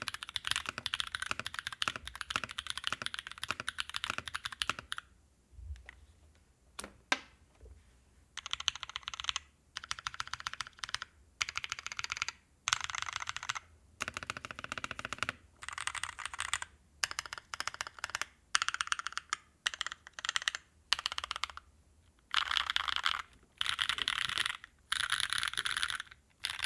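Typing on an aeboards Constellation mechanical keyboard in half-iso gasket mount with Naevy v2 long-pole tactile switches. There are about five seconds of fast, steady typing, then a pause with a couple of single key clicks. After that come short bursts of rapid keystrokes separated by brief gaps.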